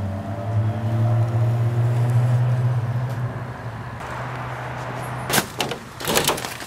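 An engine running with a steady low hum that fades after about three seconds, then a quick run of sharp metallic clicks and knocks from a shed door latch being worked.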